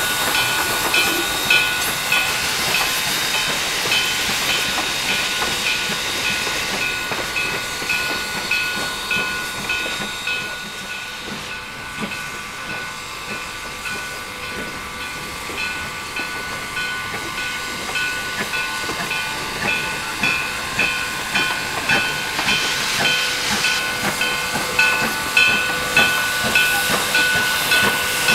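Steam locomotive #1702, a 2-8-0 with its stack modified for a smoother exhaust, working slowly: a steady hiss of steam with a rhythmic beat of exhaust chuffs. The beat fades in the middle and grows louder again near the end.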